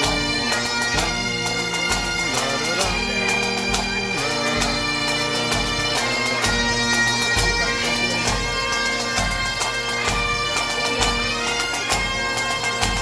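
Bagpipes playing a tune over their steady drones, with a drum beating about once a second.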